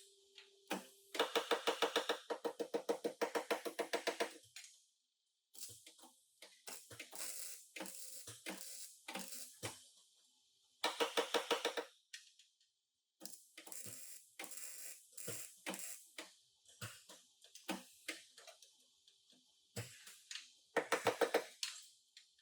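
Metal being struck in rapid runs of sharp knocks, several blows a second, with a ringing metallic note: bodywork on car sheet metal. The loudest runs come early, about halfway through and near the end, with lighter scattered knocks between them.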